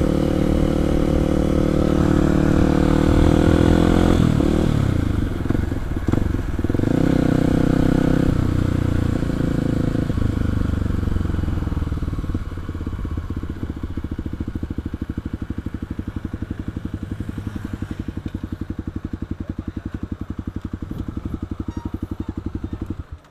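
Kawasaki KLX 250's single-cylinder four-stroke engine heard from the rider's position: it runs under way with its note shifting as the bike slows, then settles from about twelve seconds in into a steady, even idle pulse.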